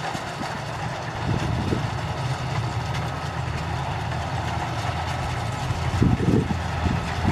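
Engine of a Kubota rice combine harvester running steadily, with a low hum under a broad mechanical noise. Some uneven low buffeting comes in about six seconds in.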